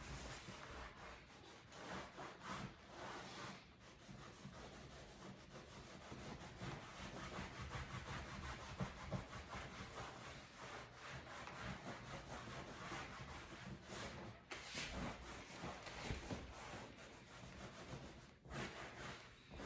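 A cloth rubbing and wiping over a leather couch's surface as it is cleaned and polished to a shine: continuous uneven scuffing with a few short pauses.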